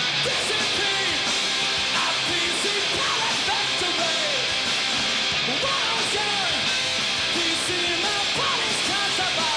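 Rock music with guitar, dense and steady in level, laid over the footage as a soundtrack.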